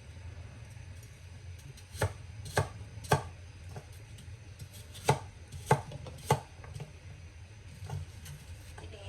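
Kitchen knife chopping fruit on a cutting board: two runs of three sharp knocks about half a second apart, the first about two seconds in and the second about five seconds in.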